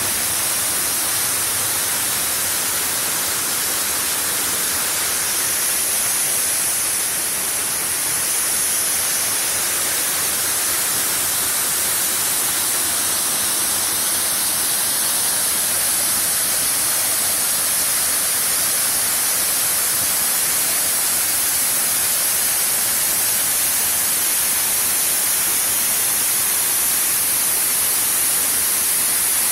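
Steady rushing of water, an unbroken hiss that is brightest in the high treble and holds the same level throughout.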